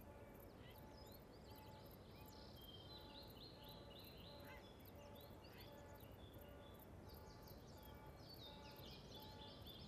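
Faint birdsong from several birds: quick chirps and rapid trills coming in runs, over quiet outdoor background hiss.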